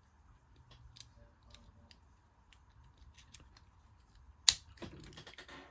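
Lock pick and tension wrench working the pins of a Master Lock 40 mm padlock, scattered faint metallic clicks. About four and a half seconds in comes one sharp, loud click, the shackle popping open, followed by brief metallic rattling.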